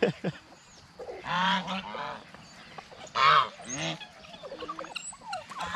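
Domestic geese honking: two loud honking calls, one about a second and a half in and another about three seconds in, with softer short calls between and near the end.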